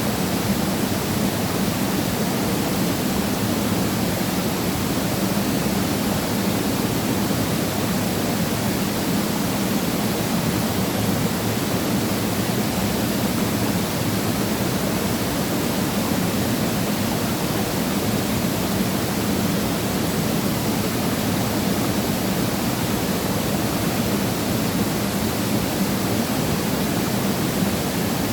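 Waterfall pouring steadily, a constant loud rush of falling water with no change.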